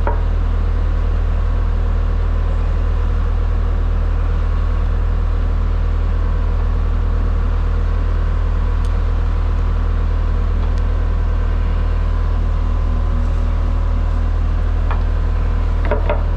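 2008 ASV SR-80 skid steer's diesel engine idling steadily, with a deep even rumble.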